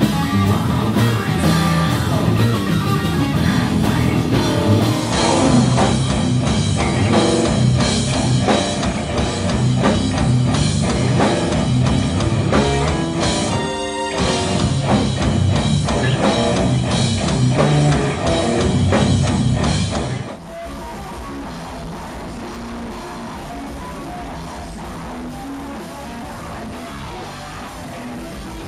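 Metal band playing live: distorted guitars, bass and drums. The sound changes abruptly at cuts about 5 and 20 seconds in, breaks briefly near the middle, and is quieter and thinner after the second cut.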